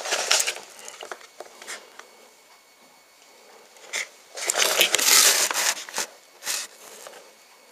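Cardboard box and tray being handled: rubbing and scraping of cardboard as a boxed microinverter is lifted and tilted. A longer scrape comes about halfway through, followed by two sharp knocks.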